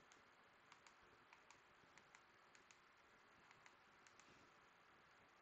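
Faint typing on a computer keyboard: a password being keyed in, as irregular key clicks that often come in quick pairs.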